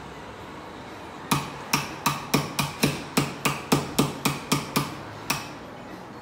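About a dozen sharp, ringing taps at roughly three a second, starting about a second in and stopping about a second before the end.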